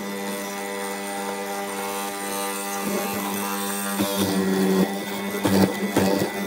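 Benchtop hollow-chisel mortiser's motor running with a steady hum. About three seconds in the chisel starts plunging into the hardwood, adding uneven knocks and crackles as it chops and clears chips, busiest near the end.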